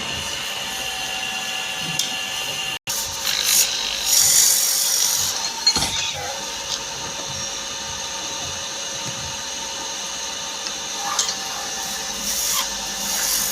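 Electric wood lathe running with a steady whine, a cutting tool scraping the spinning wood in louder bursts about four seconds in and again near the end.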